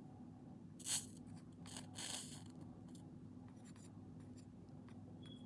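Faint, brief scrapes and rubs of solder and soldering iron being worked against a small metal plug sleeve, the clearest about a second in and another around two seconds in, over a steady low hum.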